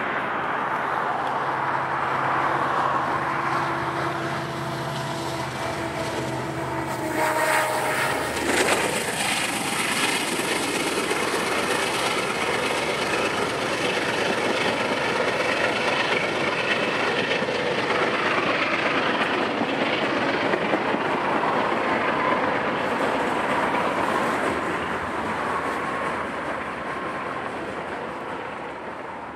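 Norfolk Southern freight train passing beneath: the diesel locomotives' engine drone drops in pitch as they go under about eight seconds in, then the freight cars roll through with a steady wheel-on-rail rumble and clatter that fades near the end.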